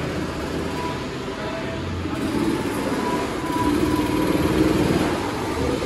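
Go-kart engine running at speed on a track, getting louder about three and a half seconds in.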